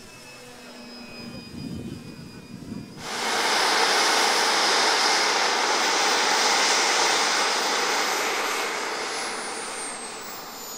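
Radio-controlled model plane flying close by. A loud, steady rush of motor and propeller noise starts suddenly about three seconds in, with a high whine sliding slowly down in pitch. Before that there are only faint engine tones.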